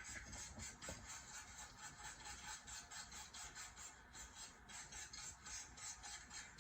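Faint, steady rhythmic ticking, about four ticks a second.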